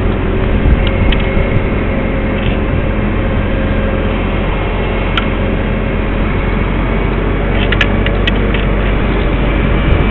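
Crane's engine running at a steady speed, with a few brief clicks about eight seconds in.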